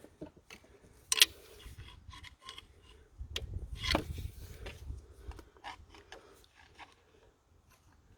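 Plastic clips on a diesel leak-off pipe being worked onto the fuel injectors by hand. A sharp snap about a second in, another click a couple of seconds later, then small clicks and rubbing of plastic parts.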